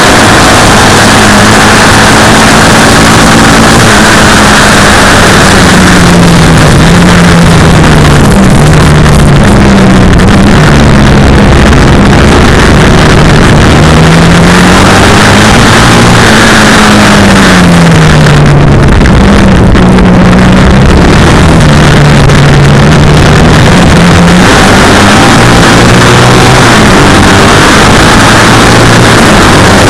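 Racing sidecar outfit's engine at full throttle, heard close up and loud, its pitch climbing and dropping several times as the revs go up and down, over a steady rush of wind and road noise.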